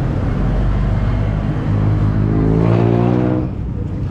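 A motor vehicle's engine passes close by on the street, rising in level and pitch slightly, loudest about three seconds in, then dropping away quickly. Traffic noise runs underneath.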